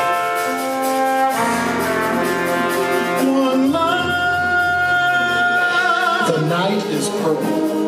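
Live concert band playing sustained brass chords, with one long held note that wavers with vibrato near the end.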